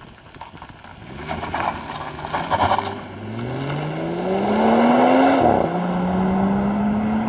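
Ford Falcon XR6 Turbo's turbocharged straight-six accelerating hard in a fly-by, its pitch climbing until a quick upshift about five seconds in, then holding steady.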